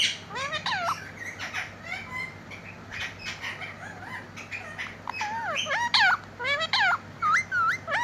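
Indian ringneck parakeet (rose-ringed parakeet) making quick runs of short, gliding squawk-whistles: softer chatter in the first half, then a loud burst of calls in the last three seconds.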